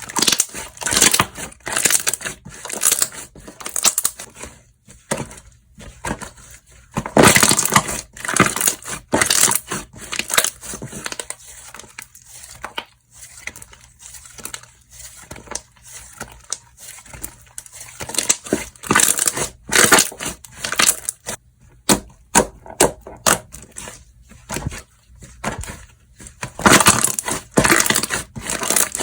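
Slime being squished, pressed and stretched by hand, making irregular crackling, popping and squelching noises that come in bursts with short pauses.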